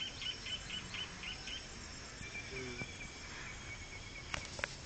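Insects chirping: a high pulsing chirp repeating about four times a second, giving way to a steady high trill, with two sharp clicks near the end.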